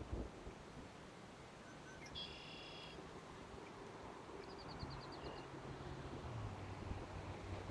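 Birds calling faintly: a short buzzy call about two seconds in, then a quick run of about eight high notes a couple of seconds later. A low steady hum comes in during the second half.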